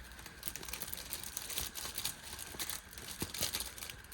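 Packaging being crumpled and crinkled by hand in irregular crackles, during cleanup after a sticker install.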